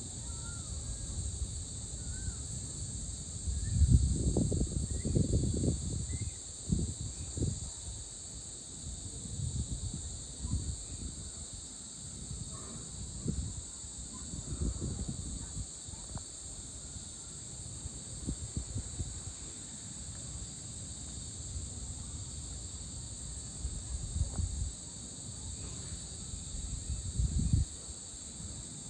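Steady evening chorus of crickets and other insects, with a few faint bird chirps. Under it runs an uneven low rumbling that is loudest about four to six seconds in and again near the end.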